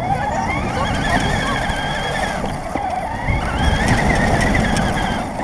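RC car's motor whining and its tyres rumbling over pavement, heard from on board the car; the whine rises as it speeds up, eases off about halfway, then climbs again before dropping near the end.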